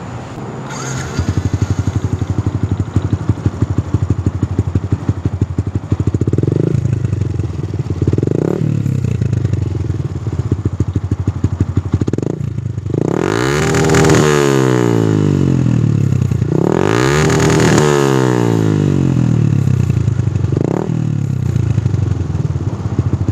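Yamaha LC135's single-cylinder four-stroke engine running through an open Akrapovic slip-on exhaust. It idles with a rapid, even beat and is blipped a few times, then revved hard twice about halfway through, its pitch rising and falling each time, with one more short blip near the end.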